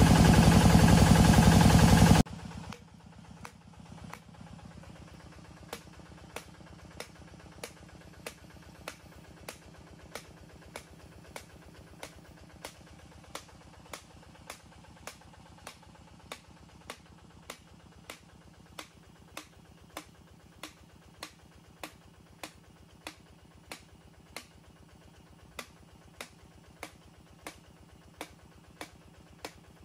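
A drilling rig's engine running loudly, cut off abruptly about two seconds in. Then a faint low hum with sharp, evenly spaced ticks, about one and a half a second.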